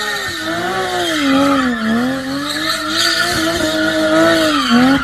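A Porsche engine held at high revs while drifting, its pitch swinging up and down as the throttle is worked, with tyres screeching underneath. The revs dip about two seconds in and again near the end.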